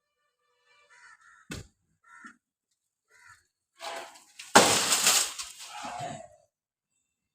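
Crows cawing, a sharp knock about a second and a half in, then a loud crash of breaking and rustling lasting about two seconds, loudest at its start about four and a half seconds in.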